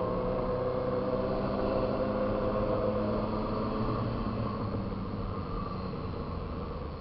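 Motorcycle engine running under way, with wind and road noise. The engine note holds steady for about three seconds, then eases off as the level falls.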